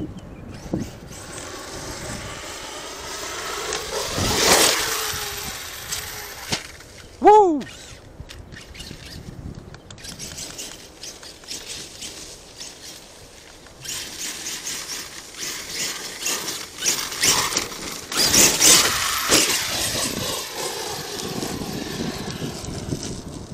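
Arrma Kraton 8S electric RC monster truck being driven: its brushless motor whines up and down in pitch with the throttle, in noisy surges. The loudest surge comes about four and a half seconds in, there is a short rising-then-falling whine about seven seconds in, and a busier run of surges comes in the second half.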